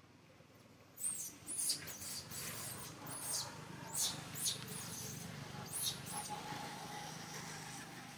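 Baby monkey crying in a run of short, high-pitched squeals, about six of them, starting about a second in.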